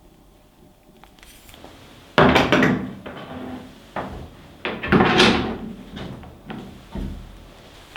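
Welding machine's box and packaging being handled during unboxing: sudden scraping, rustling bursts about two seconds in and again around five seconds, with a few sharp knocks between.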